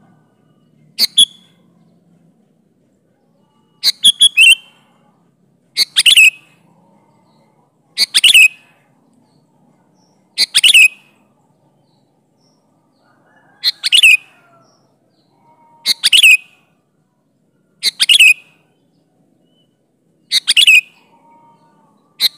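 Sooty-headed bulbul (kutilang) calling: short, loud phrases of a few quick, falling notes, repeated about every two seconds.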